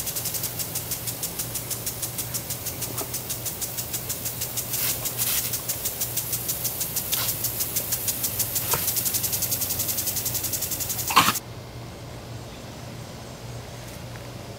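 Brass impact sprinkler on a tripod spraying, a hiss of water with a rapid, regular ticking as the head steps round. Near the end there is one short, loud knock, and the spray cuts off suddenly.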